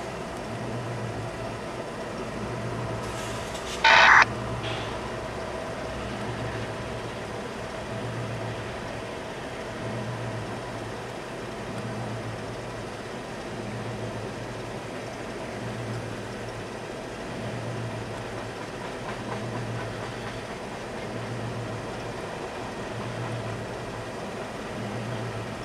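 Freight train of loaded trash-container cars rolling past, a steady rumble with a low beat recurring about every second and a half to two seconds. A brief, loud, sharp sound cuts in about four seconds in.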